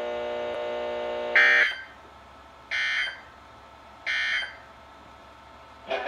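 A steady buzzing tone from the weather radio that cuts off about a second and a half in. It gives way to three short bursts of screechy EAS data tones about a second and a half apart: the end-of-message code that closes a NOAA Weather Radio tornado warning broadcast.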